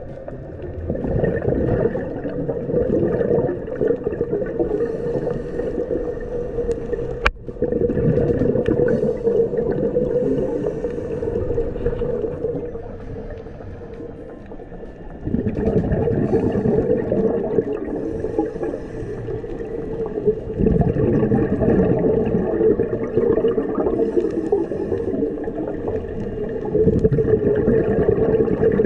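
Underwater sound of scuba diving: regulator breathing with loud stretches of exhaled bubbles lasting several seconds, over a steady hum. There is a sharp click about seven seconds in.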